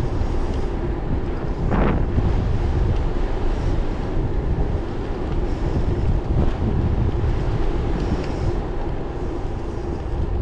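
Wind buffeting the microphone of a bicycle riding at about 25 km/h on an asphalt road, with a steady low rumble of tyres and rushing air and occasional stronger gusts.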